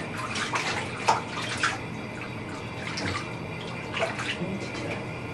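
Water splashing and sloshing in a bathtub as a toddler is bathed, with several sharper splashes scattered through it.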